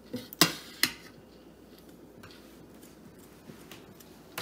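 A metal spoon clinks twice against the side of a stainless steel stockpot, then scrapes softly as it stirs through dry crumbled cornbread and breadcrumbs.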